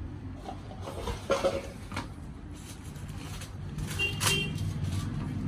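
Hands handling paper packaging at a counter: rustling with scattered clicks and knocks, the loudest about a second and a half in, and a brief high-pitched sound about four seconds in. A steady low rumble of street traffic runs underneath.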